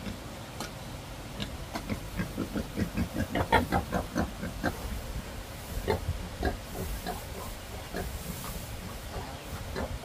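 Pigs grunting, from a sow lying in straw with her newborn piglets. A fast run of short grunts, about five a second, comes a few seconds in and is the loudest part, with scattered single grunts before and after.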